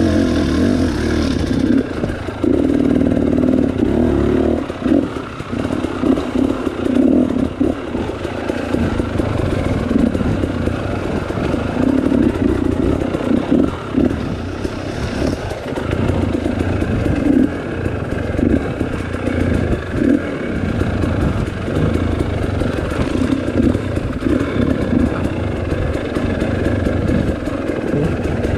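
2018 KTM 300 XC-W's two-stroke single-cylinder engine, ridden slowly over rough trail with the throttle opened and closed in short, irregular bursts, along with clattering from the bike.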